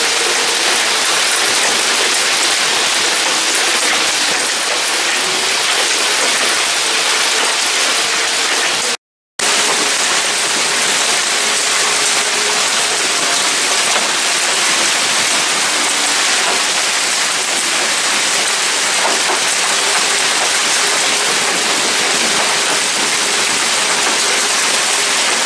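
Heavy rain pouring down in a severe thunderstorm, a dense, even hiss of falling water, with a faint steady tone held underneath. The sound drops out briefly about nine seconds in.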